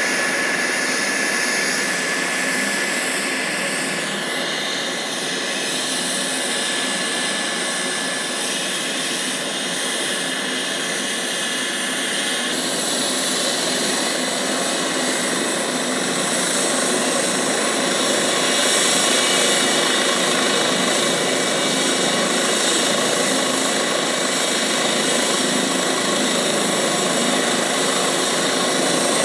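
Medical helicopter running on the ground with its turbine engine and rotor going, a steady noise with a thin high whine over it. It grows a little louder about halfway through.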